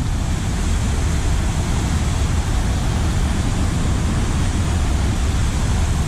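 Waterfall's water pouring and rushing: a loud, steady noise with a deep low rumble under a wide hiss.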